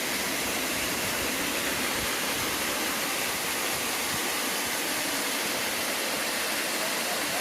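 Waterfall: falling water pouring down as a steady, even rush of noise.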